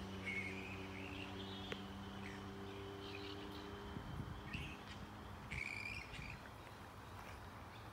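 Grey-headed flying foxes calling from their roost: short calls scattered through, several clustered near the end, over a steady low hum that stops about halfway through.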